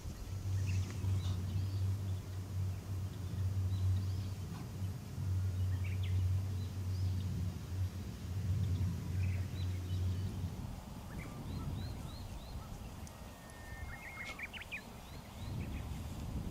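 A low steady hum that stops about ten seconds in, followed by a few small bird chirps.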